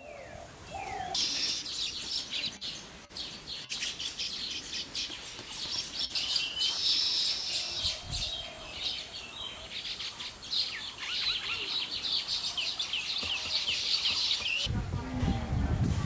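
A flock of baya weavers chattering: many rapid, high chirps overlapping densely, cutting off abruptly near the end.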